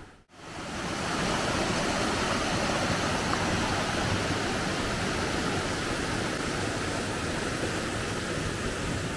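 Steady rush of flowing water, even and unbroken.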